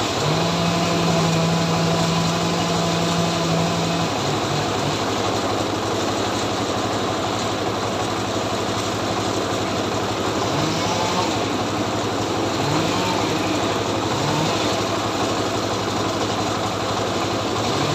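Two-stroke chainsaw engine running continuously, its pitch steady for the first few seconds and then wavering.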